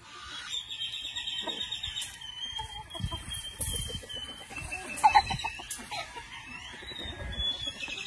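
Rooster clucking, with a short call about five seconds in, over a steady high chirping in the background and a few low thumps from the camera being moved.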